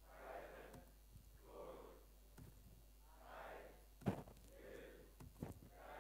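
Faint, distant voices saying single words, one roughly every second, muffled and without clear pitch. A sharp knock cuts in just after the middle and is the loudest sound.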